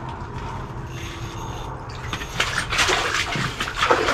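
A large northern pike thrashing and splashing in the ice-fishing hole as it is pulled up through the ice; the splashing starts about halfway through and grows louder toward the end.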